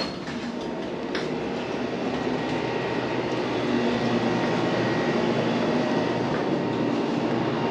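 Hydraulic freight elevator running: a clunk, then a steady rumble that builds slightly over the first few seconds and holds.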